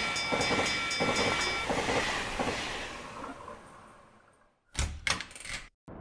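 Cartoon sound effect of a train clattering past a railroad crossing, with the crossing's warning bell ringing in an even rhythm. The bell stops a little under two seconds in, and the train noise fades away to silence by about four seconds in. Near the end come a few short knocks.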